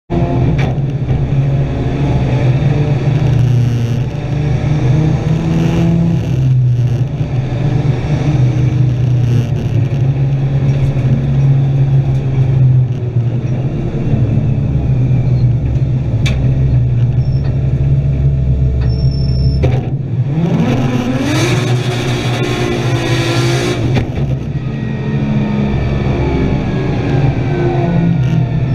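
Nissan Skyline R32's turbocharged RB straight-six heard from inside the cabin under racing load, holding high revs with gear changes. About two-thirds of the way through, the revs drop at a shift and then climb steadily for a few seconds.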